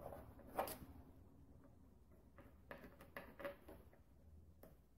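Near silence, with a few faint, scattered taps and scrapes from a pencil and a small marking guide being handled against a fiberglass model boat hull.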